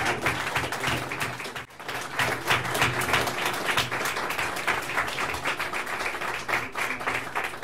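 Audience applauding: many people clapping at once, briefly thinning about a second and a half in.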